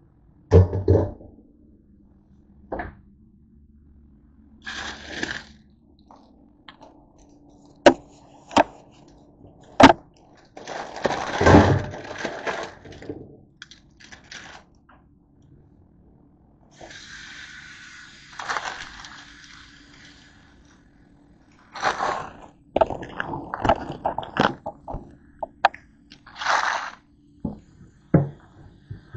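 Dishes and a plastic colander knocking and clattering around a stainless steel kitchen sink, with a few short spells of tap water running while grapes are rinsed. The knocks come singly at first and crowd together near the end.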